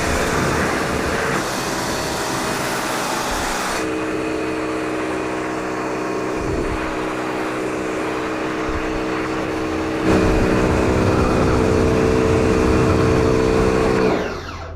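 Bosch electric pressure washer running with a steady motor hum over a hiss. The hiss drops about four seconds in, the hum grows louder about ten seconds in, and near the end the motor winds down and stops.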